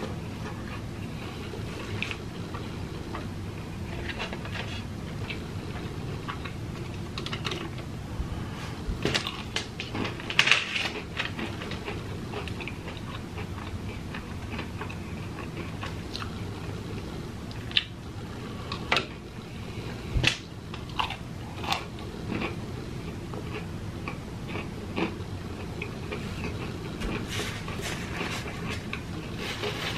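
A person chewing crispy fried chicken nuggets close to the microphone: mouth noises with scattered crunches and clicks, loudest about ten seconds in and again in a cluster a little past the middle, over a steady low hum.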